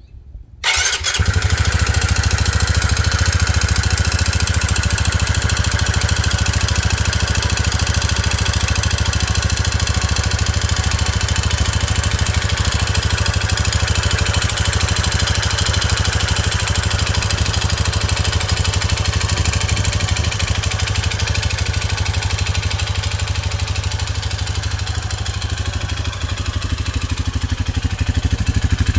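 Honda CT125 Trail 125 single-cylinder engine, fitted with a Takegawa 143cc big-bore piston and cylinder, starting up about a second in and then running steadily at idle. It carries an internal engine noise that the owner suspects may be piston slap.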